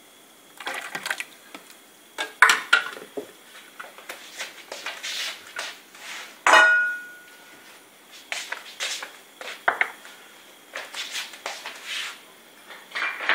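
Kitchen clatter of utensils and containers knocking and clinking, in scattered small bursts, with one louder metallic clink that rings on briefly about six and a half seconds in.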